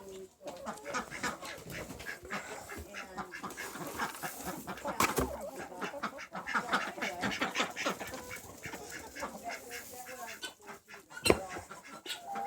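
Ducks and chickens calling, many short calls overlapping, with a few sharp knocks, the loudest about eleven seconds in.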